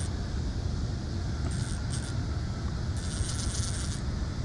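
Fishing reel clicking in two short bursts of fast metallic ticking, as a hooked fish on a bent rod is reeled in. Under it runs a steady low rumble.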